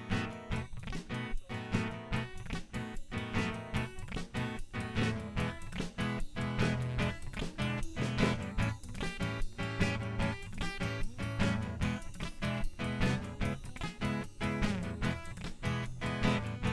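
Live instrumental music: a strummed guitar with percussion keeping a steady beat, no singing.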